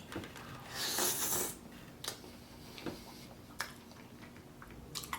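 Close-miked eating of carne asada fries: a brief rustling, crunchy burst about a second in, then a few soft clicks of food and mouth sounds.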